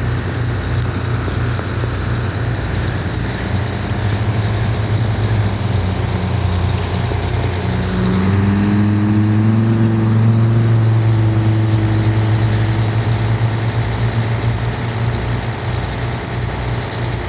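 A large motor vehicle's engine running steadily close by. About eight seconds in it grows louder and its pitch climbs slightly, as if revving or pulling away under load, then it settles back.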